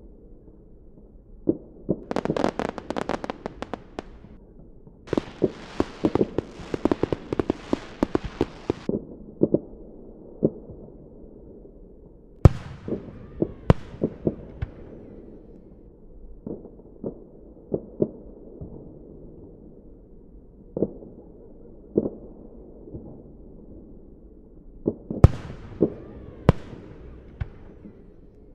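Fireworks going off: scattered bangs and stretches of dense crackling, the longest lasting about four seconds, plus a few sharp, loud bangs that ring on with an echo.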